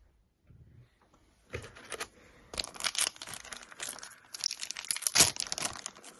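Foil trading-card booster pack being crinkled and torn open by hand, starting after about a second and a half of near quiet, loudest just past five seconds in.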